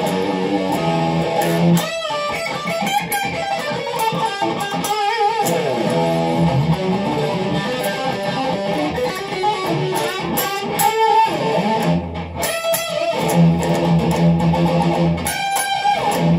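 Maestro by Gibson SG Jr. electric guitar, plugged in, playing strummed chords and picked riffs with sustained notes between sharp strums.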